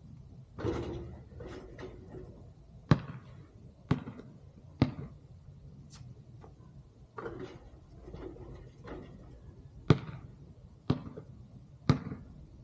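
A basketball bouncing off hard ground, sharp single bounces about a second apart in two runs of three, with softer scuffs and rattles in between.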